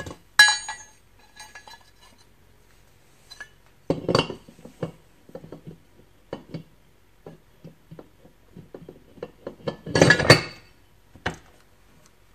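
Heavy steel Dana 60 axle parts (spindle, caliper bracket and knuckle) being handled and fitted together: a ringing metal clink about half a second in, then scattered knocks and scrapes, with louder clunks around four seconds and again near the end as the spindle is set down onto the knuckle over the bracket.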